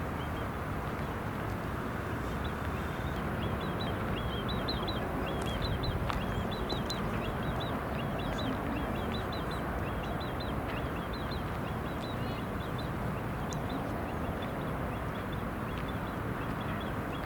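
Many small birds chirping in quick short calls over a steady rushing background noise.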